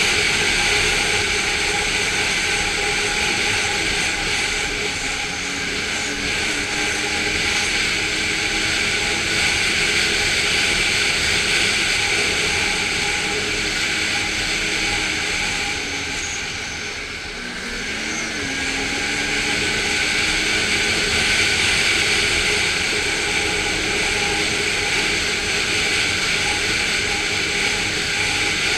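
Snowmobile engine running steadily at speed over a groomed snow trail. A little past halfway the engine eases off briefly, then its pitch rises and falls as the throttle picks up again.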